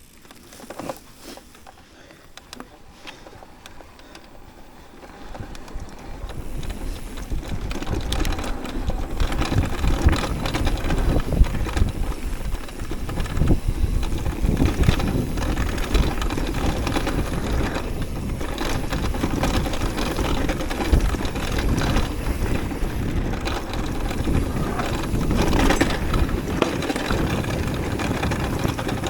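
Electric mountain bike riding over rough trail ground: tyre noise with the chain and frame rattling and knocking, and wind buffeting the microphone. Quiet with a few clicks for the first several seconds, then louder and steady from about seven seconds in.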